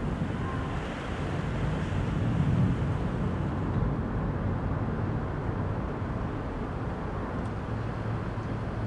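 Soft wind blowing as a steady low rush with no clear whistle, swelling a little about two and a half seconds in and then easing.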